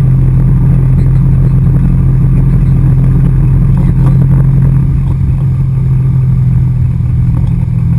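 Wakeboard tow boat's engine running steadily at towing speed, a loud constant drone that drops slightly about five seconds in.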